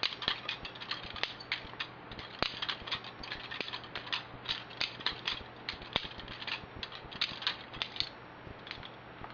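Balisong (butterfly knife) being flipped by hand: its metal handles and pivots clack and click in an irregular run, several clicks a second.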